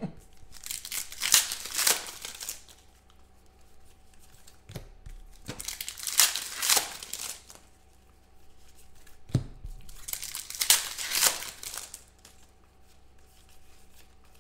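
Foil trading-card pack wrappers being torn open and crinkled by hand, in three bursts about four seconds apart, with a couple of short knocks between them.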